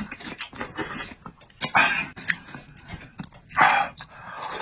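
Close-up mouth sounds of eating a stir-fry of pig blood and egg: wet chewing with many small clicks, and two louder hissing slurps about two and four seconds in.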